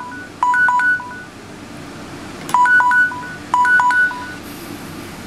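A Samsung smartphone's loudspeaker is sounding an alarm tone: quick groups of short electronic beeps that alternate between two pitches. The groups come in pairs about a second apart, with a pause of about two seconds between pairs. This is the loud find-my-phone alarm that a Tasker profile plays at raised media volume when a paired Bluetooth device connects.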